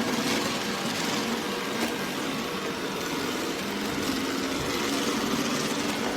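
Robot vacuum cleaner running with a steady motor and brush hum.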